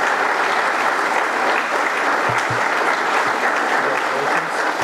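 Audience applauding steadily, with a few dull low thumps about halfway through.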